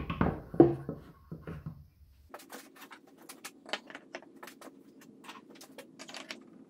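Wooden-bodied spokeshaves knocking against the wooden pegs of a wall rack as they are hung up, with a cluster of knocks in the first second or so. From about two seconds in, a low steady hum runs under a string of light clicks and taps.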